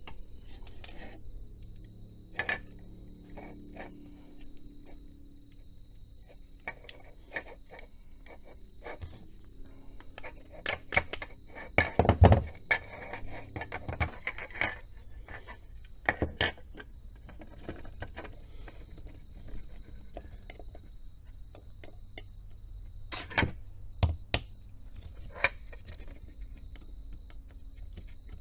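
Hard plastic parts of a garden tap timer clicking, knocking and rubbing as they are handled and tapped back together, with a cluster of louder knocks about twelve seconds in and a few more near the end.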